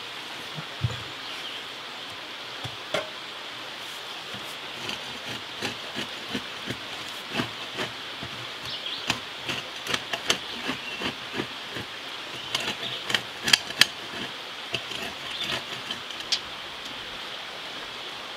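Hand digging in rocky soil with a pick mattock and a long-handled shovel: irregular knocks and scrapes of steel on dirt and stones. The strokes come sparsely at first and more thickly through the second half.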